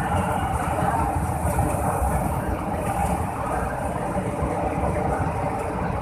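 Four-car LRT-1 third-generation light rail train passing close by on the elevated track, with a steady rumble of wheels on rail and running gear.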